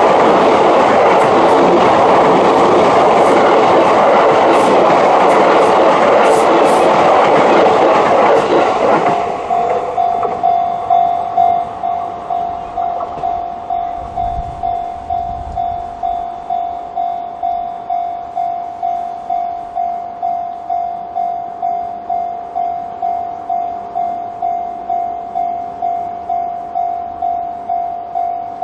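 A Sotetsu Line train runs loudly through a level crossing for about the first nine seconds, then is suddenly gone. The crossing's electronic warning bell, of the 'Chichibu' tone type and fairly quiet, then rings on alone in an even, repeating ding, each stroke fading away.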